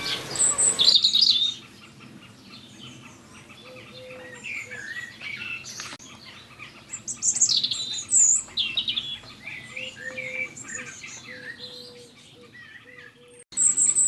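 Small birds chirping and singing, with a rushing noise in the first second and a half.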